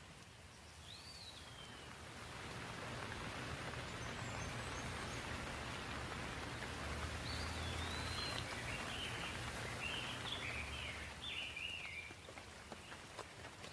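Rain falling in a steady rush that builds over the first few seconds and eases near the end, with a low rumble beneath it. Small birds chirp repeatedly over the rain in the middle.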